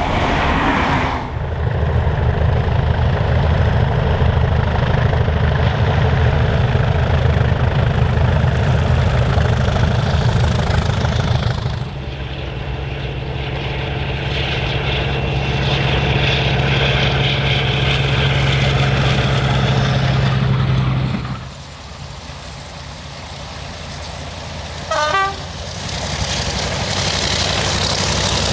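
Diesel locomotive engines running hard as trains pass, heard in several short clips cut one after another, with a steady low engine drone. About 25 seconds in, a brief horn toot sounds over a quieter passage.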